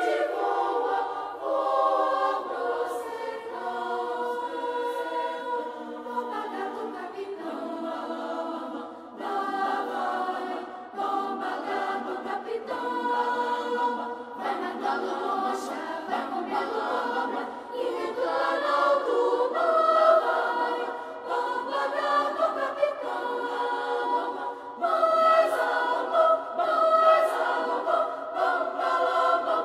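Children's choir singing, all in high voices with nothing in the bass range.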